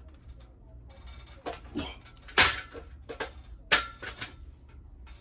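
Metal clanks and knocks during weighted pull-ups, as the weight hanging from the belt and the pull-up tower rattle with each rep. There are several sharp hits, the loudest about two and a half seconds in and another near four seconds.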